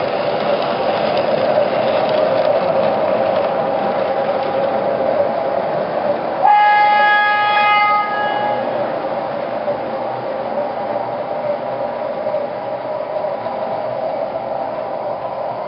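MTH Railking O-gauge R-17 subway model train running on its track, a steady rumble from the running train. About six and a half seconds in, its ProtoSound 2.0 sound system gives one horn blast lasting about a second and a half.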